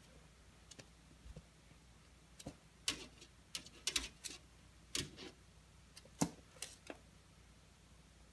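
A puppy's claws clicking and tapping against a sliding glass door, in a run of scattered light taps from about two and a half seconds in until about seven seconds in.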